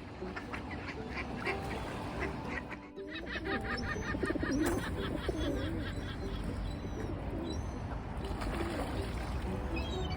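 A mixed flock of gulls and ducks calling over one another, with a run of rapid, repeated honking calls about a third of the way in.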